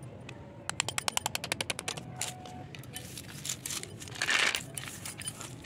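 Knife blade cutting a white slate pencil into thin slices in a quick run of sharp clicks, about ten a second, for just over a second. Then a handful of the brittle slate slices clatters and scrapes across the hard surface as it is scooped up, the loudest part, about four seconds in.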